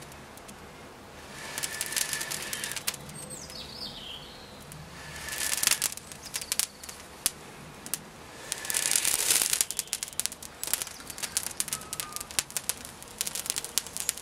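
Breath blown hard into a smoking tinder bundle in three long puffs, then the tinder crackling in quick sharp clicks as it burns.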